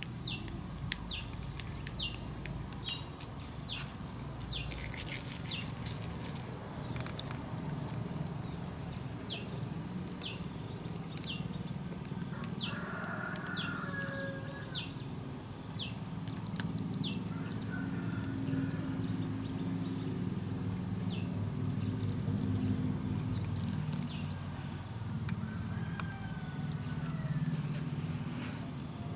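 Outdoor field ambience: a bird repeatedly calls with short, high, downward-sweeping chirps, about one or two a second, stopping about halfway through. Under it are a steady high insect drone and a low rumble that grows louder in the second half.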